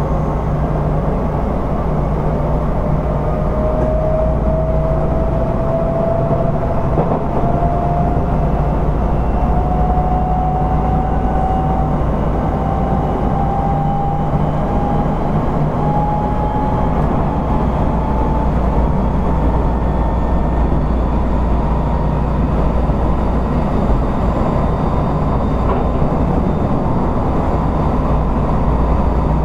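Odakyu 1000 series electric train car running: a steady loud rumble from the wheels and bogies, with a motor whine that rises slowly in pitch as the train gains speed and levels off past the middle.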